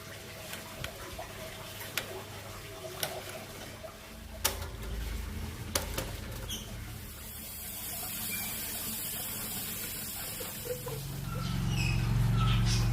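Sharp clicks and knocks as a lovebird cage's water and food cups are handled, then a few seconds of hissing pour, with short lovebird chirps near the end.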